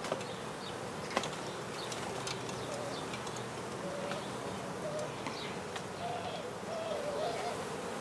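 Honey bees from an exposed hive buzzing in numbers as their cluster is scooped: a steady hum with single bees droning past, their pitch wavering up and down. One sharp click about a second in.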